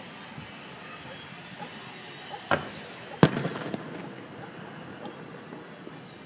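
Aerial firework shells bursting in the distance: two sharp booms about two and a half and three seconds in, the second louder, each followed by an echoing rumble, and another boom right at the end.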